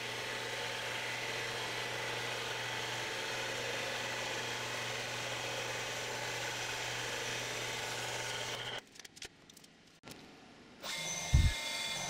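Metal-cutting bandsaw running steadily, its Starrett Intenss Pro-Die blade sawing through a metal block. The sound cuts off about nine seconds in. Near the end a short thump comes and another machine starts running steadily.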